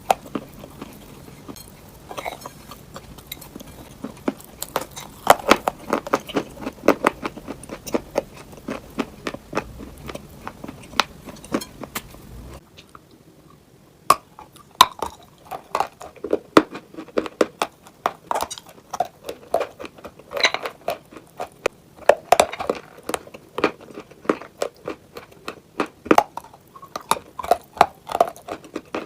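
Close-up crunching as someone bites and chews brittle, chalky clay: a dense run of sharp, irregular crunches. About twelve seconds in a low background hum cuts out while the crunching goes on.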